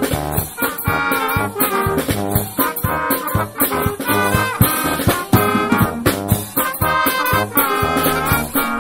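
Small brass band playing a tune: trumpets, trombone, tenor horn, saxophones and tuba over a drum kit keeping a steady beat.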